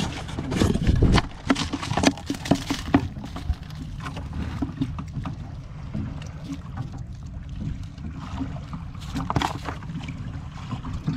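Water splashing and knocking around a small fishing boat, over a steady low rumble of wind on the microphone. A cluster of sharp knocks and splashes comes in the first few seconds and another near the end.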